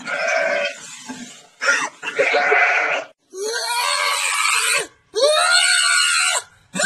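A cat yowling in four long, drawn-out calls, each about a second and a half, with short breaks between them.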